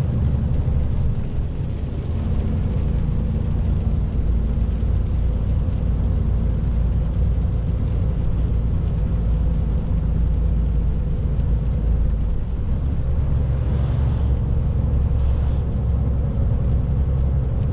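Truck engine running steadily under way, heard from inside the cab: a low, even drone with road noise from the wet highway.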